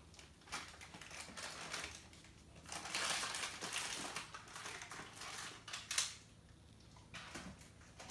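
Faint rustling and crinkling, loudest in the middle, with a sharp click about six seconds in.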